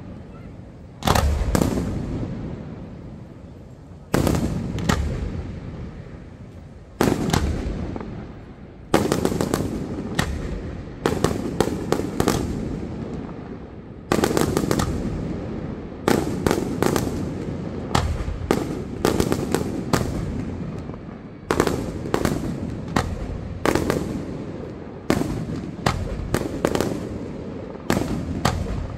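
Aerial firework shells bursting in a display. Sharp booms come every second or two, each trailing off in a long echo, and they come faster and in clusters of several bangs in the second half.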